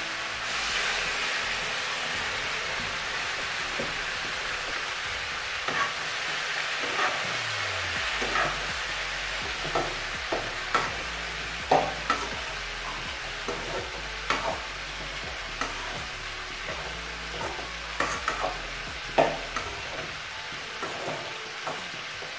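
Chopped onions, tomatoes, mint and coriander sizzling in hot oil in a steel kadai, the sizzle strongest right after they go in. A metal ladle clinks and scrapes against the pan again and again as they are stirred.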